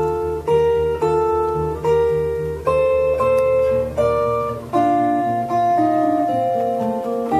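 Solo acoustic guitar played with plucked notes: ringing chords and melody notes over a low bass that pulses steadily, with a new chord or note about every half second to second.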